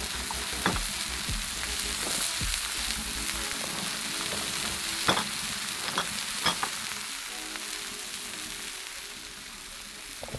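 Beef burger patties sizzling on the hot steel top of a wood-burning camping stove: a steady frying hiss with occasional sharp pops.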